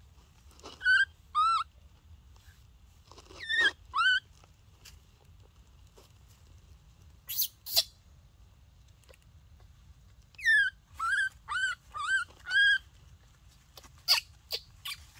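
Baby monkey crying: short high calls that each rise and fall in pitch, two pairs and later a run of five, with a few harsher, scratchy squeals in between.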